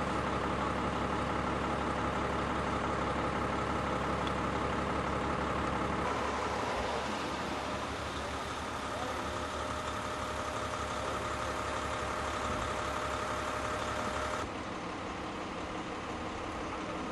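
Steady vehicle engine hum with street noise. It changes abruptly about six seconds in and again near the end, and a faint steady whine is heard in between.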